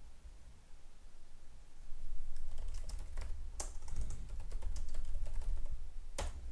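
Typing on a computer keyboard: a quick run of key clicks about two and a half seconds in, then a single louder keystroke near the end.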